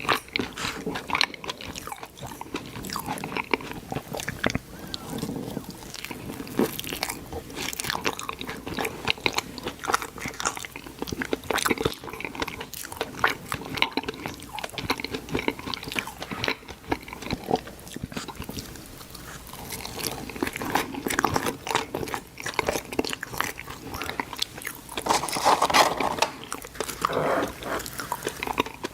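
Close-miked eating: a person biting and chewing fast food, a dense, irregular run of small sharp clicks and crackles from the mouth, louder for a couple of seconds about 25 seconds in.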